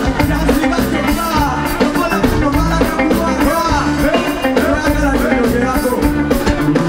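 Live band music with electric guitar and a drum kit keeping a steady beat, with a rapper's voice over it through a microphone.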